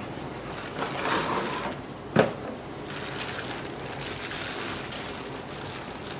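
A rustle lasting under a second, then one sharp knock a little over two seconds in.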